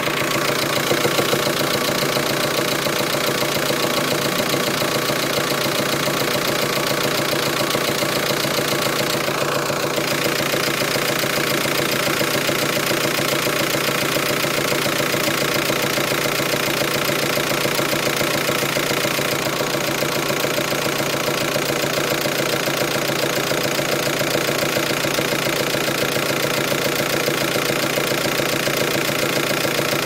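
T5 engine idling steadily with an intermittent knocking noise that comes and goes, most noticeable about two-thirds of the way in. The noise is unexplained: it first showed at higher revs and now also comes on at idle.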